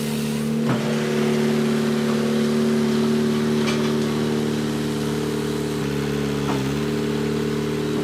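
Firewood processor's turbocharged John Deere diesel engine running steadily, with a few sharp knocks from the machine: one about a second in, one near the middle and one late on. The engine note dips briefly about six seconds in.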